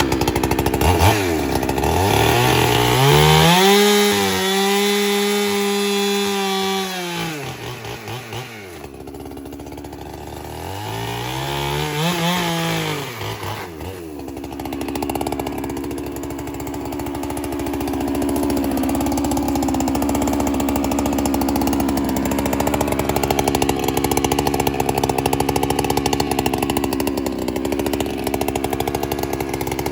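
Holzfforma two-stroke chainsaw revved up to a high, steady pitch, dropped back to idle, and revved again. It then settles into a long, steady run at a lower, rougher pitch.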